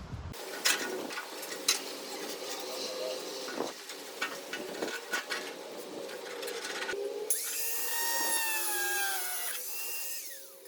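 Clicks, knocks and scraping of tools and parts being handled. Then, a bit past the middle, a power drill runs for about two seconds, its whine falling in pitch as it slows, with a brief falling whine again near the end.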